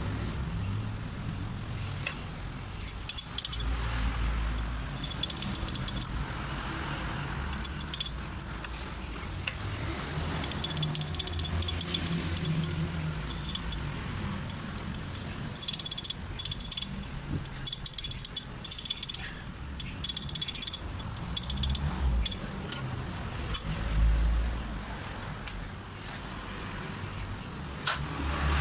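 Bursts of small metal clicks and rattling as an oiled diesel injection pump part is worked by hand against a steel bench vice, over a steady low rumble.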